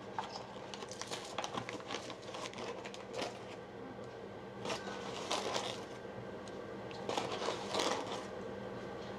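Kitchen handling noise while preparing pancake batter: irregular rustling, crinkling and small clicks and scrapes, over a steady low hum.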